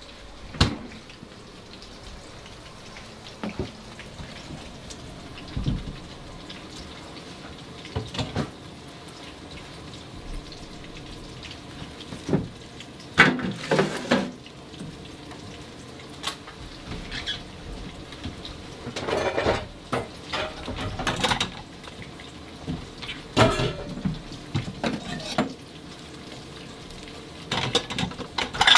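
Kitchen handling sounds: dishes, a plastic colander and vegetables knocked and set down on a wooden cutting board by the sink, in scattered short clatters over a steady hiss.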